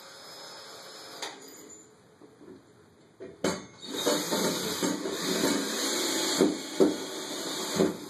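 Cordless drill-driver with an extra-long bit driving a screw through a grab bar's mounting flange into the wall: a sharp click about three and a half seconds in, then the driver runs for about four seconds and stops near the end.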